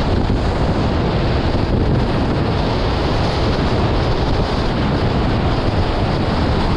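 Wind buffeting the microphone together with the rush of water and spray along the hulls of a Nacra 20 beach catamaran sailing fast in strong breeze. A loud, steady rushing noise with no breaks.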